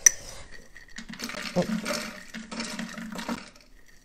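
A click, then walnuts poured into the bowl of a kitchen cooking robot, rattling and sliding in a dense patter for about two seconds.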